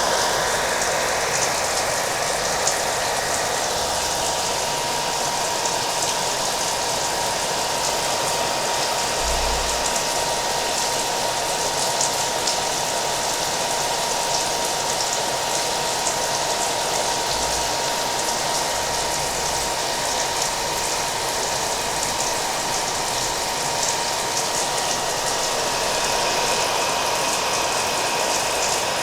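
Hair dryer running steadily with a constant whine, layered with steady rain.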